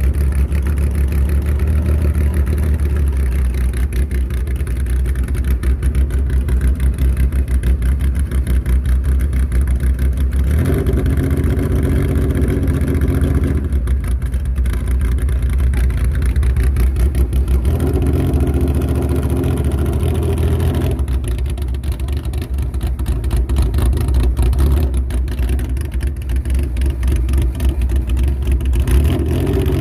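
Porsche 911 SC rally car's air-cooled flat-six engine running hard, its note changing several times as the driver accelerates and lifts off.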